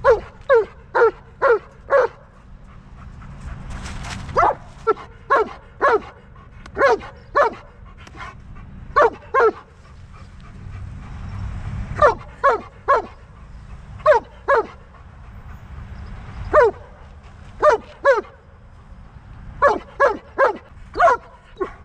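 A dog barking: short, sharp barks in quick runs of two to five, one run every few seconds.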